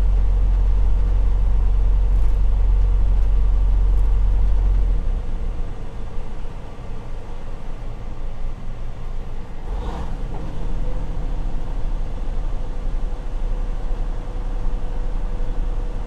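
Cab noise of a Freightliner Cascadia semi-truck driving at town speed: a heavy low engine and road rumble that falls to a lighter rumble about five seconds in. A brief burst of noise comes near ten seconds in.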